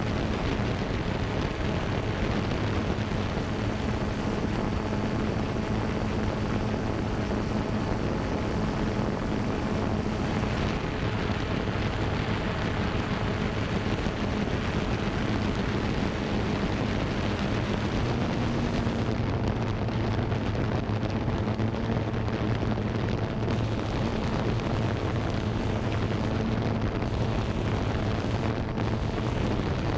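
Quadcopter drone's motors and propellers humming steadily, heard close up from the camera on board, with a rushing noise over it. The hum's pitch shifts slightly a few times as the drone manoeuvres.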